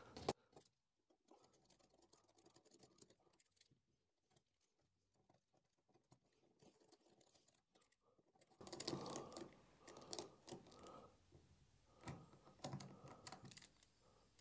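Small bolts being turned with a hand screwdriver to fix a limit switch to a CNC carriage plate: faint clicking and scraping in short clusters, starting about two-thirds of the way in.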